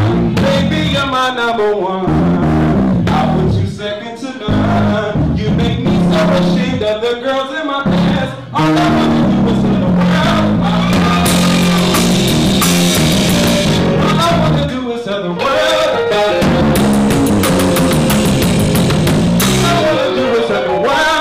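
Live R&B band: a man sings over a drum kit and bass guitar, with cymbals ringing in the latter half.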